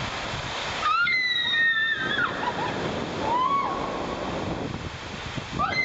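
Water rushing down a water-park tube slide under an inflatable ride tube, a steady loud wash of water. High-pitched shrieks from the riders cut in about a second in and again at about three seconds.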